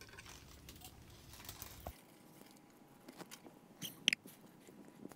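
Faint rustling and light clicking of a thin-wired LED string light being untangled and handled, with a couple of sharper ticks about four seconds in.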